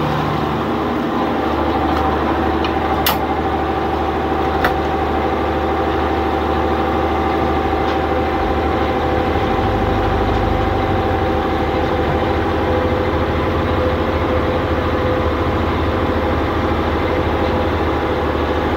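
Fishing boat's inboard diesel engine running steadily while going astern, its low hum deepening about halfway through. Two short sharp clicks a few seconds in.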